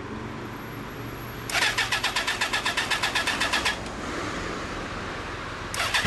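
Motorcycle electric starter cranking the Suzuki GSX400S Katana's inline-four for about two seconds without it firing. The engine catches right at the end.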